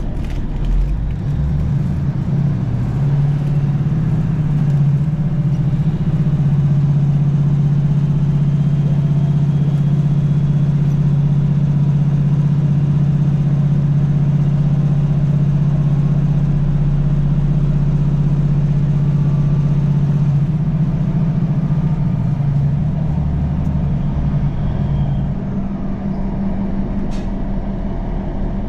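Class 156 Super Sprinter diesel multiple unit heard from inside the carriage: its underfloor Cummins diesel engine drones steadily under power over the run of the wheels on the rails. About twenty seconds in the engine note breaks and wavers, then settles on a slightly higher, quieter note.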